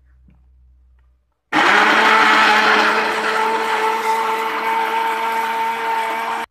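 Countertop jug blender switched on about a second and a half in, its motor running with a steady whine while it purees shallots, garlic, chillies and lemongrass into a paste. It stops abruptly at the end.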